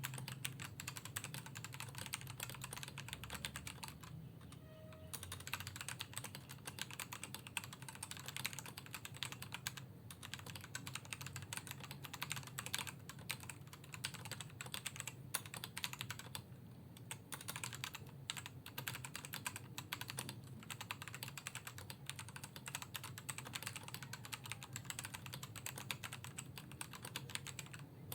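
Typing on an unmodded Attack Shark K98 mechanical keyboard with its stock red linear switches: a fast, continuous clatter of keystrokes, with a short pause about four seconds in.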